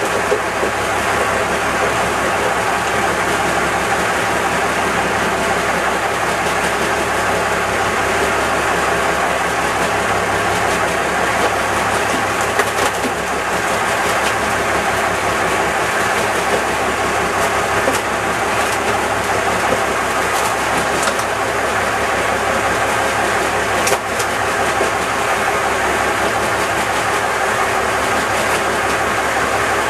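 A fishing boat's engine running steadily: a loud, continuous mechanical drone with a few light knocks.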